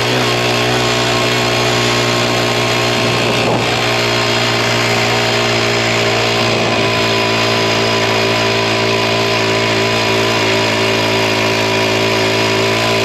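Small engine of a mini bike running at a steady speed, its pitch holding even throughout.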